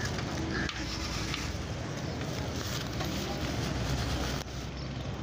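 Busy street ambience: a steady rumble of passing traffic with faint voices in the background.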